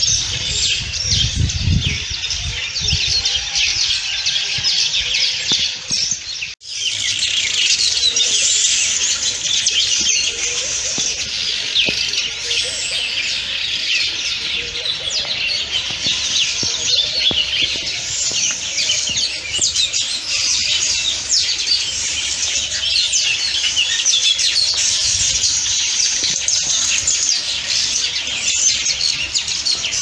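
Many birds chirping and calling at once in a dense, continuous chorus. The sound drops out for a moment about six seconds in.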